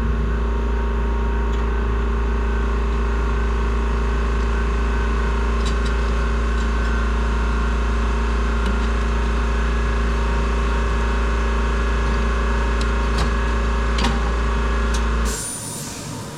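A machine runs with a steady drone, a deep hum and several held tones, then cuts off sharply about fifteen seconds in.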